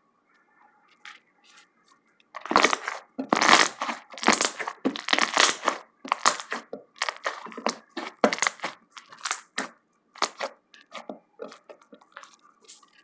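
Slime being squished and pulled in the hands, giving a quick, irregular run of short crackly pops of trapped air. It starts about two seconds in, is densest for the next few seconds, then thins out.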